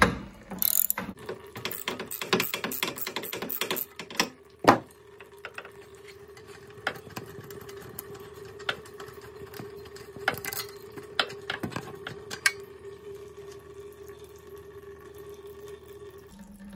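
Ratchet wrench with a 5/8-inch deep socket clicking in quick runs as the spark plug is unscrewed from a Briggs & Stratton generator engine, then a sharp knock and a few scattered clicks as the plug is worked out by hand. A faint steady hum runs underneath.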